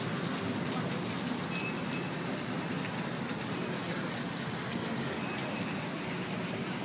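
Steady city traffic rumble: an even background noise with no distinct events, and a few faint, short high tones heard now and then.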